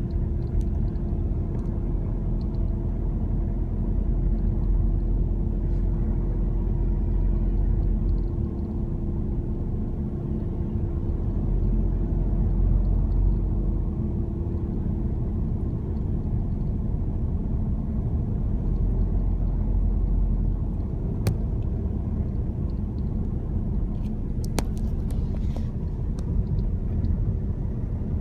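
Ford Kuga making an abnormal noise: a steady low rumble with a steady hum over it that fades out about halfway through, and a few sharp clicks in the second half.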